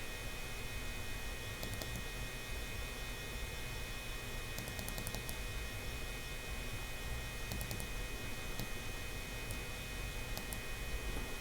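Steady low electrical hum with faint high steady tones and a few faint scattered ticks: room tone.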